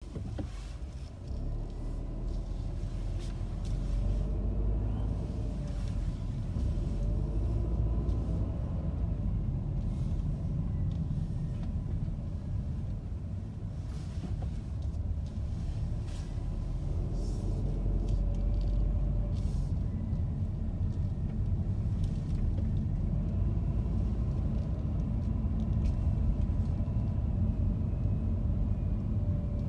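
Car driving slowly: a steady low rumble of engine and tyres on the road, with a faint engine hum that rises and falls in pitch and a few light knocks.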